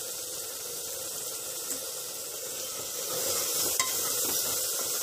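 Thick ground tomato-onion masala paste sizzling in hot oil in a pressure cooker while being stirred with a steel spoon, a steady hiss that grows slightly louder partway through. It is the masala frying on medium heat with turmeric and salt just added, cooking until the tomatoes soften and release their liquid. One light click of the spoon against the pot comes near the end.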